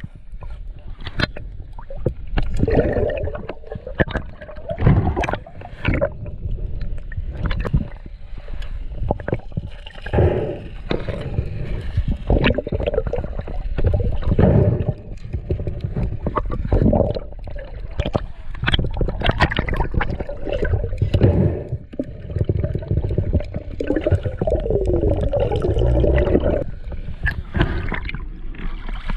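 Water gurgling and sloshing around an underwater action camera, with a deep rumble and frequent irregular knocks and surges as the camera is moved through the water.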